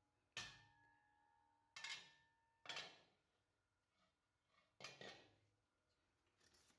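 Aluminium pressure cooker and its lid clinking as they are handled: four sharp metallic knocks over about five seconds, the first one ringing briefly.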